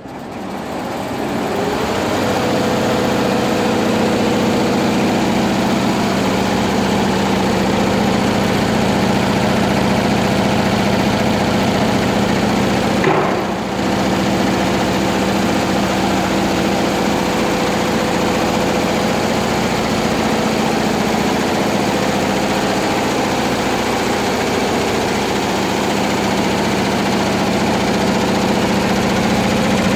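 Tai Sang Excellence Model 9-needle, 20-head embroidery machine coming up to speed over the first two seconds, then stitching steadily with a dense mechanical clatter and hum. The sound dips briefly about halfway through.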